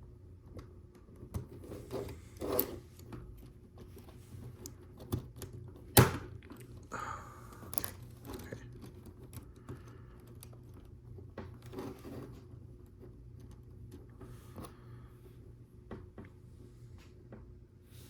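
Lego Technic plastic pieces being handled and fitted: scattered clicks and knocks, the sharpest about six seconds in, with some light rustling between them.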